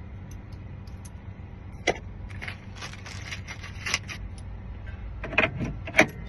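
Keys jangling and clicking as they are handled, with a sharp click about two seconds in and a run of metallic jingling after it, over a steady low hum.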